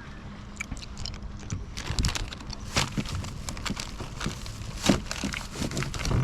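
Irregular clicks and knocks of gear being handled aboard a kayak, with two louder knocks about three and five seconds in.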